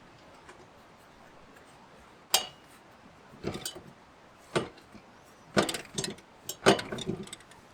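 Metal tools and parts being handled, clinking and knocking in a string of separate sharp strikes that begin about two seconds in, several of them in quick clusters.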